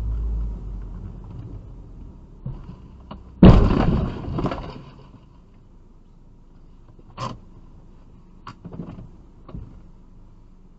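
A car collision heard from inside the car: one sudden loud crash of an SUV striking the front of the car, with crunching that dies away over about a second. A few faint knocks follow later.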